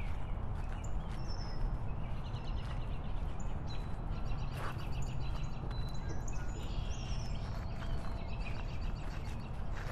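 Steady low rumble of riding noise on a moving motorcycle, with birds chirping again and again above it.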